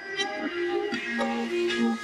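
Instrumental background music: a melody of short, sharply struck notes over held tones.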